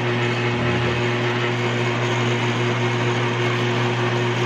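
Benchtop drill press running at steady speed: an even motor hum with a hiss over it.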